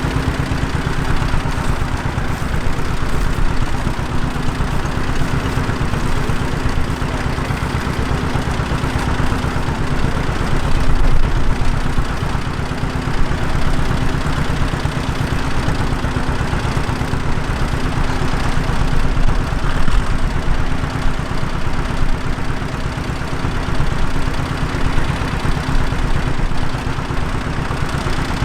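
Tractor engine running steadily, with a steady hum and a slight rise in level a couple of times.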